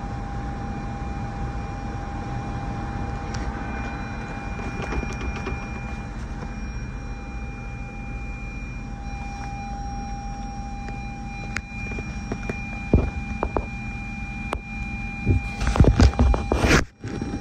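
Cabin climate-control blower fan running steadily with the ignition on and the engine off, a faint whine over the rush of air. About thirteen seconds in come a few sharp knocks, then a burst of loud clattering and rubbing near the end.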